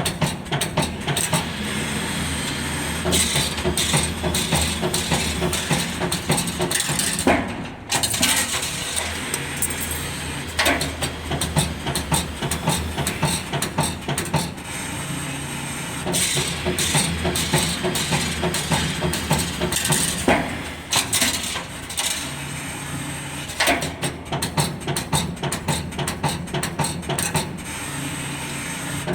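CNC 2D wire bending machine running: a steady motor hum under rapid, irregular clicking and clattering from the feeding and bending of the wire, easing off briefly twice.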